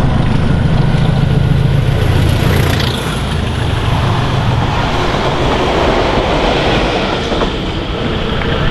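Diesel-hauled passenger train passing at speed. The locomotive's engine gives a strong low drone for the first three seconds, then the coach wheels clatter over the rail joints as the rake goes by, with a faint high whistle on top.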